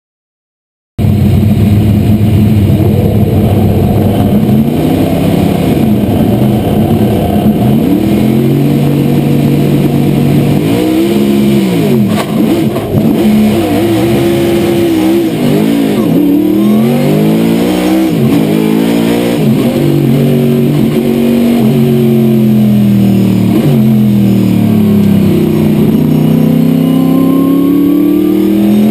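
Corvette C6 race car's V8 engine, heard from inside the cockpit, running hard under racing load; the sound cuts in about a second in. Its pitch climbs and falls again and again as the car accelerates and changes gear.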